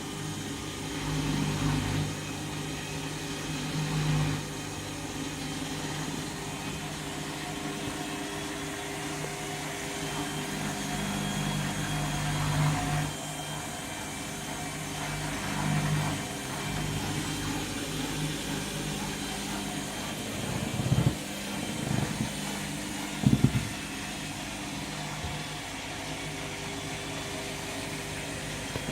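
Candy washing machine's drum spinning with a steady motor hum on its 400 rpm final spin, with a few short low thuds about two-thirds of the way through.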